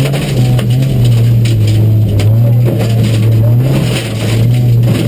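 Rally car's engine running hard under load, heard from inside the cabin, its note holding fairly steady with brief dips. Gravel crunches under the tyres and stones click against the car.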